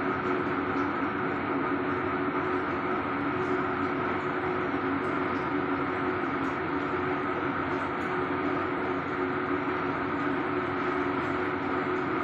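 Speedboat engine running steadily at speed, a constant drone with a dense rushing noise over it.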